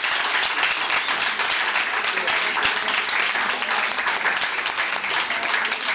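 Audience applauding steadily, a dense clatter of many hands clapping at once.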